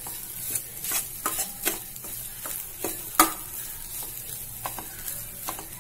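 Perforated steel spatula scraping and clinking against a stainless steel kadai as cooked rice is stirred through fried vegetables, over a faint steady sizzle. The strikes come irregularly, with the sharpest one about three seconds in.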